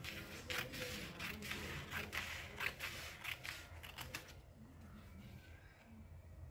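Tailoring scissors cutting through cotton cloth along a marked diagonal line for a bias strip, a quick series of snips, about three a second, that stops about four and a half seconds in.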